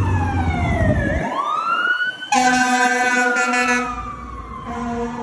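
Fire engine siren wailing, its pitch sliding down and then back up, with two long steady horn blasts over it, one about two seconds in and one near the end.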